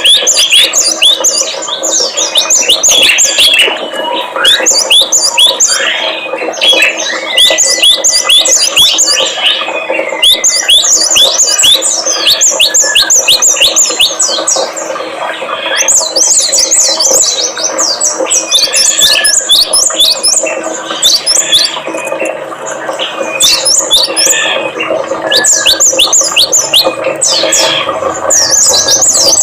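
Small songbirds chirping and twittering in rapid, overlapping runs of short, sharp, down-slurred notes, with no pause. It is a birdsong lure recording, played to set caged tits, prinias and white-eyes singing.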